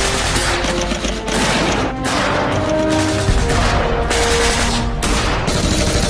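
Rapid automatic gunfire from submachine guns, a dense, continuous exchange of shots, over background music with held notes.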